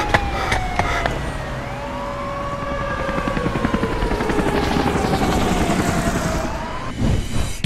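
Sound-effect city ambience of helicopter rotors chopping, with siren wails sliding slowly in pitch over it, mostly falling. A brief louder sound comes near the end.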